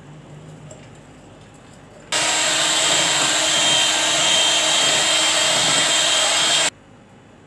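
Electric hand mixer running steadily, beating flour into cake batter; it comes on suddenly about two seconds in and cuts off abruptly near the end.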